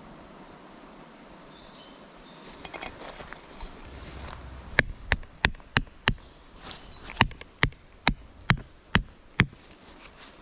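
About ten sharp blows struck at two to three a second, in two runs with a short pause between them, starting about halfway through, as in hammering or chopping at a camp.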